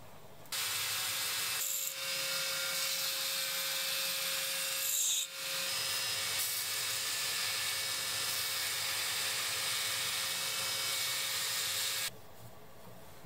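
A power tool running steadily: a continuous hiss with a steady tone under it, starting about half a second in, dipping briefly twice and cutting off abruptly near the end.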